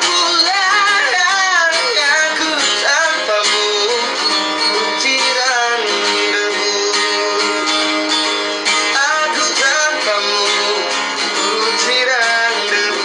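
A song: a voice singing over strummed acoustic guitar, the singing strongest in the first few seconds and again near the end.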